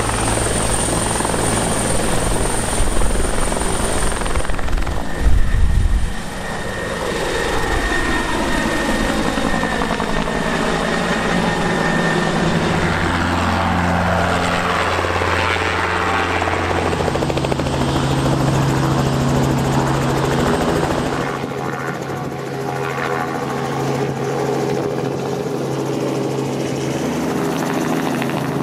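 Helicopters lifting off and hovering one after another: rotor and turbine/engine noise with a steady low hum whose pitch shifts several times. Pitch sweeps up and down as a machine moves past, and heavy low thumps come about five seconds in.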